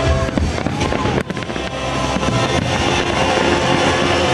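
Aerial fireworks bursting and crackling over loud music, with the music the louder sound. The loudness dips briefly about a second in.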